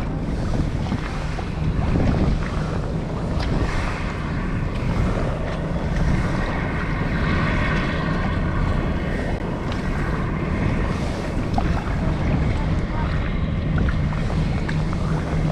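Wind buffeting the microphone over choppy sea water around a kayak, with a steady low drone running underneath.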